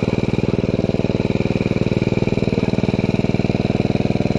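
Small engine running steadily with an even, rapid pulse, driving a water pump that draws water out of the pit through a hose.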